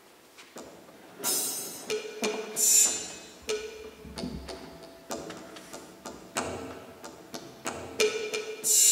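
Percussion opening a piece: irregular struck hits, some leaving a short ringing note and some with bright cymbal-like splashes, starting about half a second in and getting busier.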